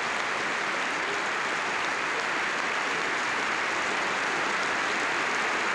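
A large arena crowd giving a standing ovation: dense, steady applause.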